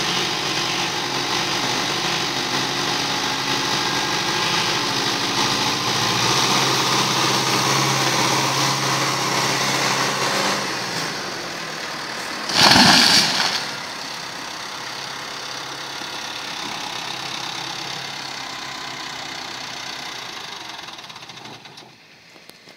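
A chainsaw runs steadily through the felling cut and drops back to idle about eleven seconds in. About a second later the felled tree hits the ground with a loud crash lasting about a second, and the saw idles on more quietly until it dies away near the end.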